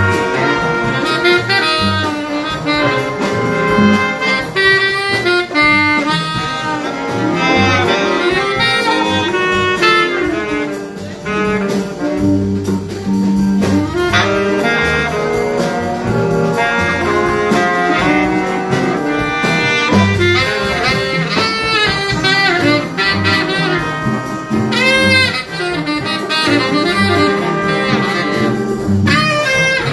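High school jazz big band playing live, with saxophones and brass carrying the melody over low bass notes.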